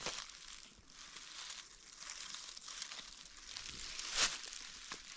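Dry fallen leaves rustling and crackling as a person moves in the leaf litter, with one louder crunch about four seconds in.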